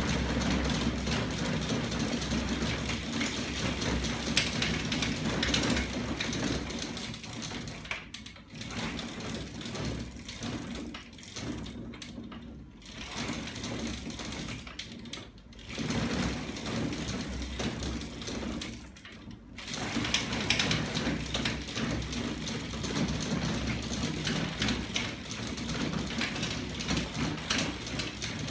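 Homemade magnet-engine bicycle pedal-assist rig running, its chain drive and shafts giving a fast, steady mechanical clatter. The sound drops quieter, with a few brief cut-outs, through the middle stretch before picking up again.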